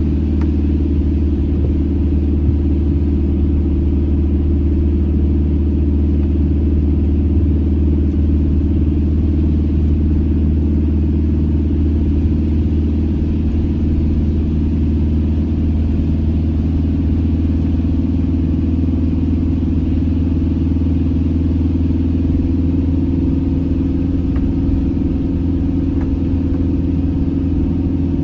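Campervan engine and road noise heard from inside the cabin while driving at a steady speed: an unbroken low drone with a steady hum.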